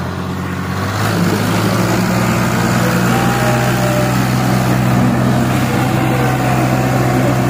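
Diesel tractor engines of a Ghazi and a Massey Ferguson 240 working hard under full load as the two pull against each other on a chain. The engine note rises and gets louder about a second in, then holds steady.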